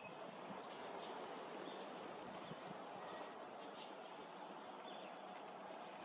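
Faint, steady outdoor background noise with a few short, high chirps from small birds scattered through it.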